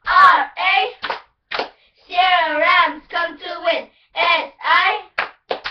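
Young girls chanting a cheerleading cheer together in a sing-song shout, punctuated by sharp hand claps.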